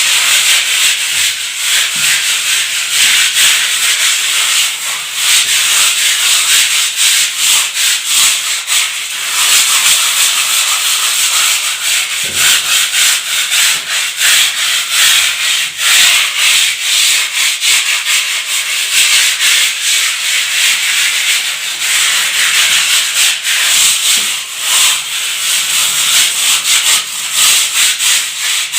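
Abrasive rubbing on a hard surface, sanding-like, in continuous rapid, uneven strokes.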